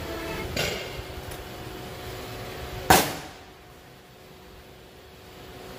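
Hand tools clatter on a thick steel plate: a light knock about half a second in, then one sharp, loud metallic strike about three seconds in that rings briefly.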